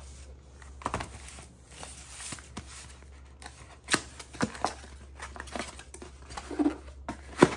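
Packaging rustling and handling clicks as new 12-volt UPS batteries are unpacked, with a few sharp knocks as they are moved about; the loudest knock comes near the end.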